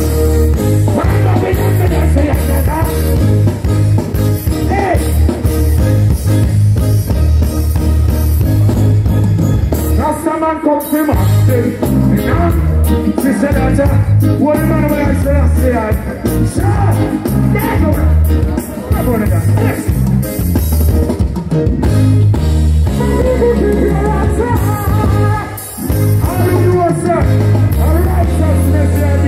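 Live reggae band playing with a heavy, pulsing bass line while a male vocalist sings into a microphone. The bass drops out briefly about ten seconds in.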